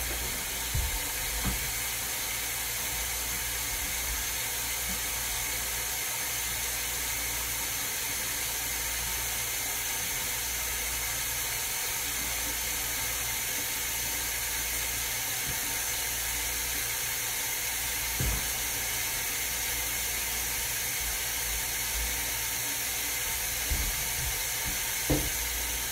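Water tap running steadily into a sink, an even rushing hiss, with a few faint knocks.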